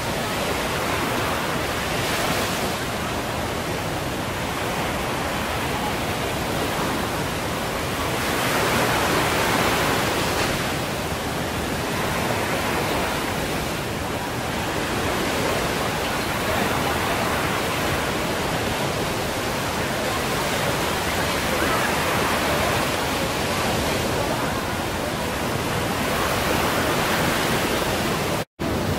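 Surf on a sandy beach: a steady hiss of breaking waves that swells every six seconds or so as each wave comes in. The sound cuts out for an instant near the end.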